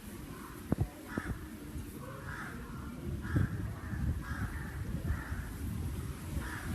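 Crows cawing, a run of about eight short, harsh caws with brief gaps between them, over a low, uneven rumble.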